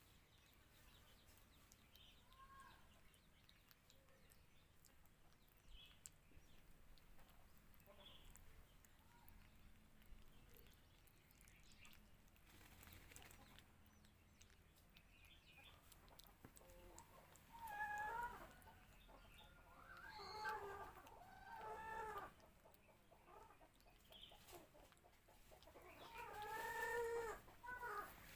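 A faint, quiet background, then in the second half about four short, pitched animal calls, each rising and falling over about a second.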